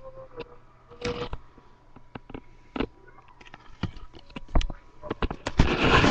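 Scattered sharp clicks and snaps from a K'nex toy rifle being handled and fired.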